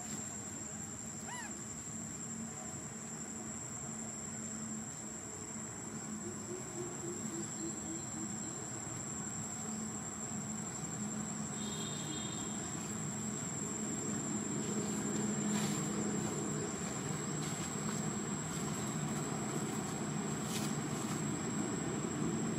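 Outdoor ambience: a steady high-pitched insect drone, over a low rumble that grows slightly louder toward the end.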